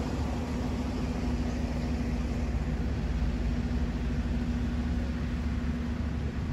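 A steady low mechanical rumble with a constant low hum, unchanging throughout.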